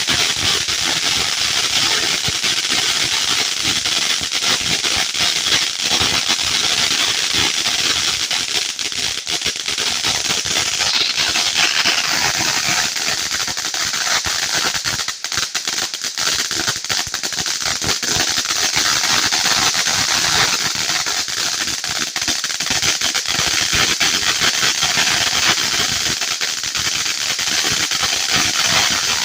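Consumer fireworks cakes going off, a dense, continuous crackling of rapid pops.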